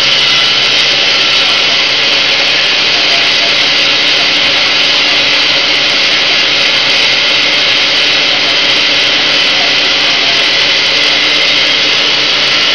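Extrusion blow molding machine making HDPE water bottles, running steadily: a loud, even hiss with a hum of steady tones underneath and no distinct knocks.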